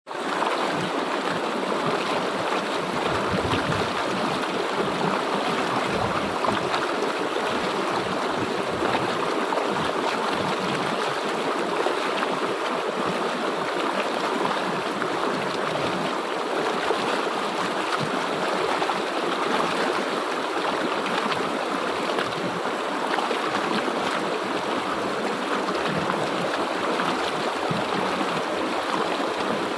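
River water flowing over rocks: a steady rushing and babbling.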